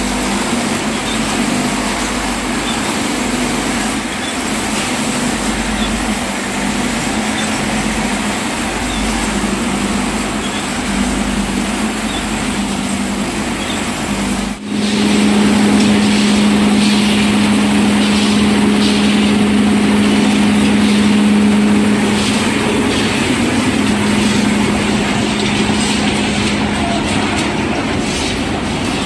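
Matchstick factory machines running steadily: a loud mechanical clatter and rattle. About halfway in it changes abruptly to a different machine with a strong, steady drone under the clatter.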